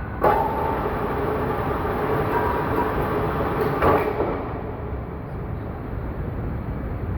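Metal lathe running under cut, a steady mechanical whine with a ringing tone that starts suddenly just after the start and flares briefly about four seconds in.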